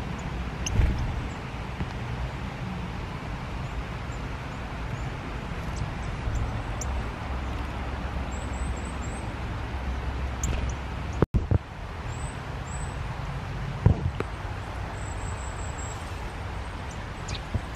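Steady rain falling on leaves, with a low rumble underneath. Runs of very thin, high small-bird call notes come about a third of the way in and again later, and there are a few sharp knocks.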